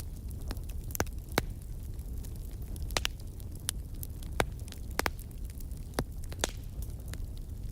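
Campfire burning: a steady low rumble of flames with irregular sharp crackles and pops from the wood, about a dozen, some louder ones a little over a second in and around the middle.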